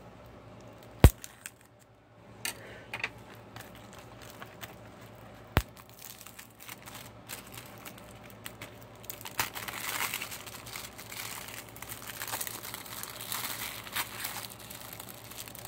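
Plastic wrapping on a Blu-ray case being torn and crinkled by hand, with two sharp clicks in the first half and denser crinkling from about nine seconds in.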